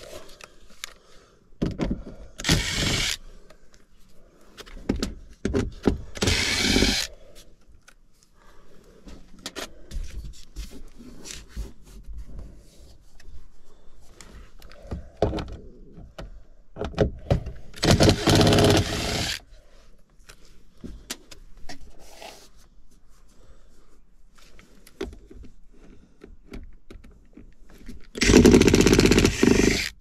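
Makita cordless impact driver running in four short bursts, about 1 to 2 seconds each, backing screws out of a sheet-metal air-handler panel, with scraping and handling of the panel between bursts.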